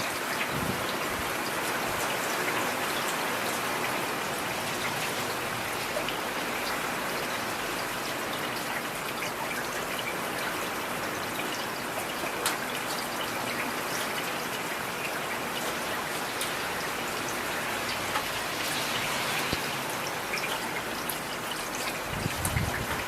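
Heavy rain falling steadily, with scattered sharp drop hits. A brief low rumble comes near the end.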